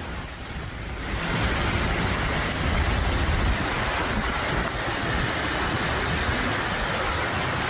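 Heavy rain and road traffic on a waterlogged street: a steady hiss of rain and tyre spray with engine noise underneath, getting louder about a second in.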